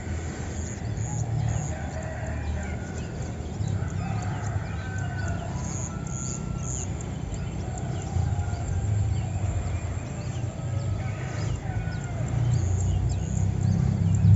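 Roosters crowing with long, wavering calls, with small birds chirping over a steady low rumble.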